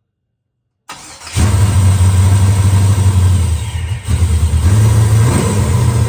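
Supercharged LS-series V8 fires up about a second in, after a brief crank, and runs loudly, its note dipping and picking back up a few times. It is a first start on a fresh base tune with the new ProCharger.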